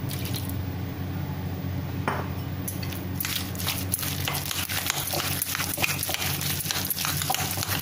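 A hand beating thick gram-flour pakora batter with chopped onion in a glass bowl: quick, wet slapping strokes that start about three seconds in and run on rapidly, over a steady low hum.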